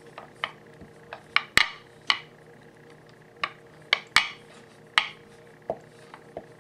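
Small white plastic rolling pin rolling out gum paste on a work board, with about a dozen light, irregularly spaced clicks and taps as the pin knocks on the board.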